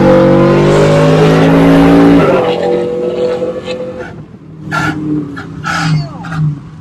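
Cammed V8 of a GMC single-cab pickup, heard inside the cab, pulling hard at steady high revs, then backing off a little over two seconds in. The engine note drops and turns quieter and uneven, pulsing.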